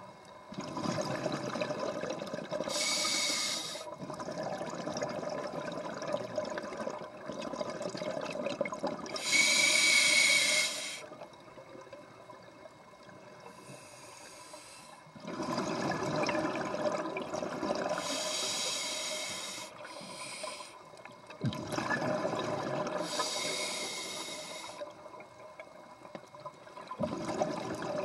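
Scuba diver breathing through a regulator underwater: a slow cycle of hissing inhalations, each followed by a louder rush of exhaled bubbles, about four breaths with quieter pauses between.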